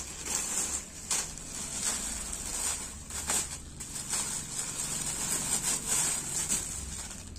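Cloth rustling as dupattas are handled, folded and swapped. A continuous crinkly rustle runs throughout, broken by many small scrapes and rubs.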